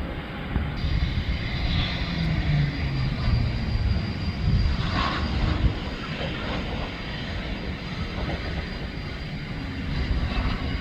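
Engine noise of a small aircraft at an airport: a steady rush with a low rumble, swelling briefly about halfway.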